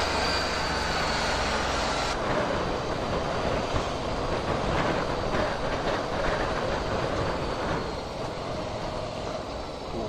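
Wind rushing over the action-camera microphone of a moving Ducati Scrambler Sixty2, with the bike's 399 cc air-cooled L-twin engine running underneath. The sound changes abruptly about two seconds in.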